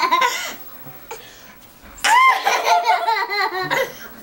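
A woman and a toddler laughing hard, in fits of short rhythmic bursts: one fit at the start, a lull, then a longer fit from about two seconds in.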